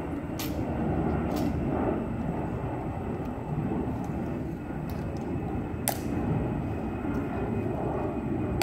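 A steady low rumble, with a few sharp clicks of a ceremonial guard's metal-tapped heels striking the stone plaza as he marches and halts.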